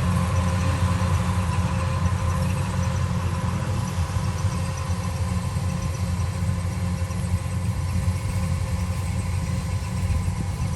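An engine running steadily with a low rumble, its pace unchanging.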